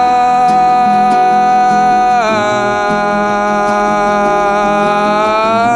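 Song: a singer holds one long sustained note, stepping down in pitch about two seconds in and holding again, over guitar accompaniment.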